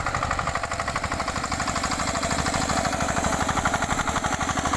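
Engine of a homemade power cultivator running steadily with a rapid, even beat as the machine tills hard ground.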